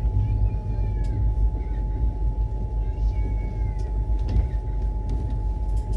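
Moving Duronto Express passenger coach: a steady low rumble of the train running on the rails, with a thin steady whine and a few faint gliding high squeals.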